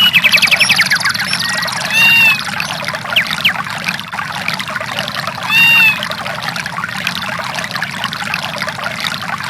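Samsung SGH-E820 nature-sounds ringtone: steady running water with bird calls over it, a rapid chirping trill in the first second and two loud arching calls about three and a half seconds apart.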